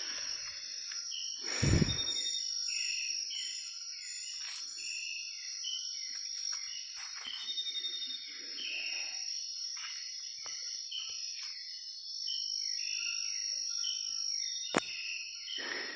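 Rainforest insect chorus: a steady high-pitched drone with many short chirping calls over it. There is a loud thump about two seconds in and a sharp click near the end.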